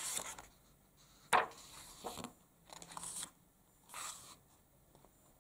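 Paper page of a picture book being turned, then a few short rustles and scrapes of hands smoothing the pages flat.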